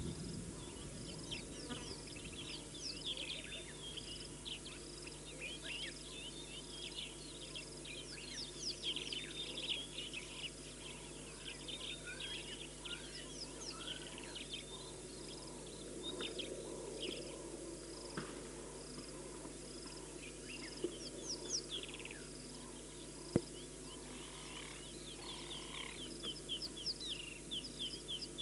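Savanna birds chirping and trilling over steady, evenly repeating insect-like pulses, with one sharp click late on.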